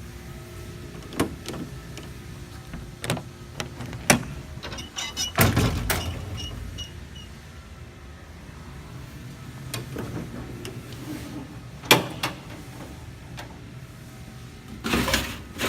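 Latches clicking and compartment doors knocking on a utility truck's service body, as a handful of separate sharp knocks a second or more apart over a low steady hum.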